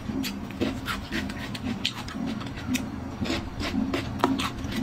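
Close-up chewing of a mouthful of food: wet smacking with crisp crunches and clicks several times a second, irregular.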